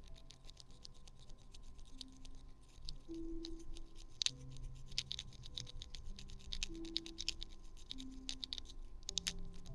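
Small port-cleaning pick scratching and clicking inside a phone's charging port: a quiet, irregular run of fast scratchy ticks, over soft background music with held notes.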